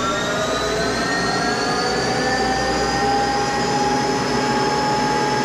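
Monarch 10EE lathe's spindle and drive spinning up toward its 4,000 RPM top speed: a machine whine that rises in pitch, then levels off and runs steady about three seconds in.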